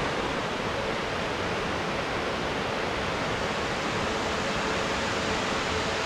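Rushing water of the Upper Sacramento River and Mossbrae Falls, a steady even hiss with no break.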